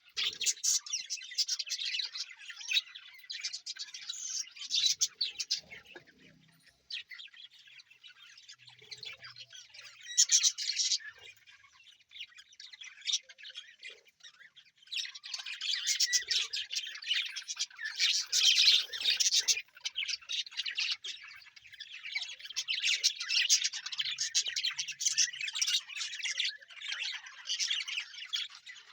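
A small flock of budgerigars chattering: many rapid overlapping chirps and squawks, quieter for a few seconds partway through, then busier again.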